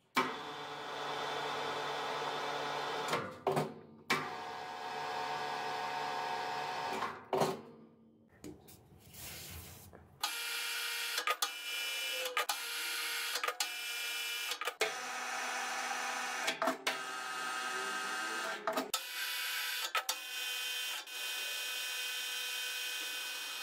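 Metal lathe running with a steady gear whine while it cuts an external thread on a steel shaft with a threading insert. The sound comes in several short stretches joined by abrupt cuts, and for about two seconds near the middle it drops much quieter.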